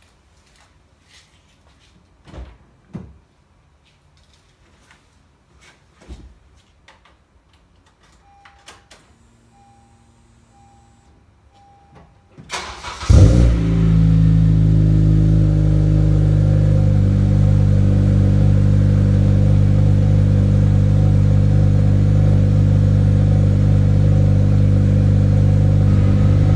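Cold start of a Honda Civic with an aftermarket K-Tuned exhaust, not driven for a while. A few faint knocks and a string of short electronic beeps come first. About halfway through, the starter cranks briefly, the engine catches with a loud flare, then settles into a steady, loud idle.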